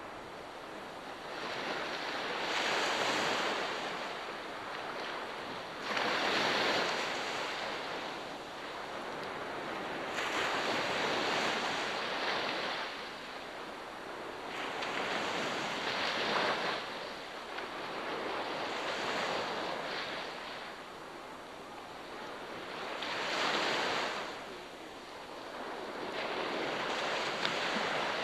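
Ocean waves breaking and washing onto the shore, surging about every four seconds.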